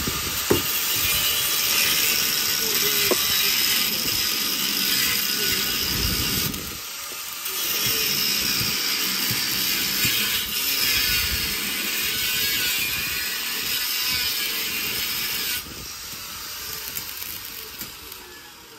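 A power tool running steadily with a hissing whine. It breaks off for about a second six and a half seconds in, then stops about fifteen seconds in.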